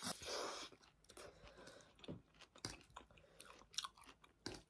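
Faint close-up eating sounds of spicy instant noodles being chewed: a soft rush in the first half second, then a scatter of small wet mouth clicks.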